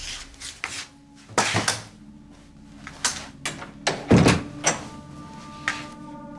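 A series of light clicks and knocks, with one heavier thunk a little after four seconds in. Soft, sustained music tones come in under them near the end.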